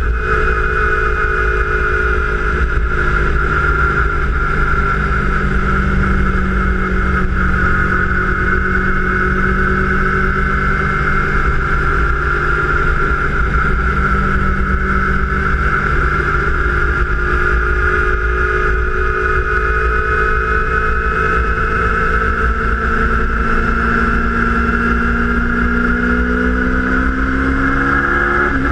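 2012 Kawasaki Ninja 250's parallel-twin engine running, with a steady high whine over the engine note; the pitch drifts slowly and rises near the end. The uploader finds the engine's noise strange.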